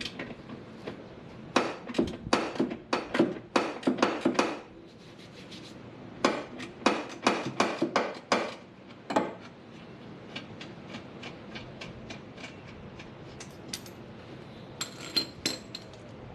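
Hand ratchet and socket clicking in quick runs of strokes, undoing the bolts that hold a front bumper to its absorbers, with fainter metal ticks later.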